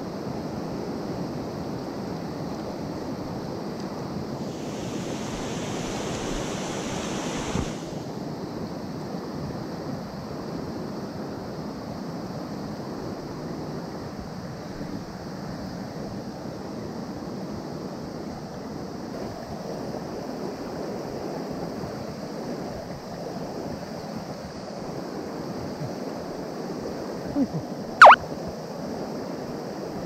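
Swollen mountain stream rushing steadily over rocks and riffles. A brighter hiss lasts about three seconds early on, and a single sharp, loud click comes near the end.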